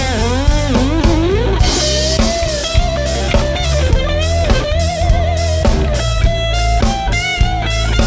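Live band playing: an electric guitar solo with bent notes and wavering held notes over bass guitar and drums.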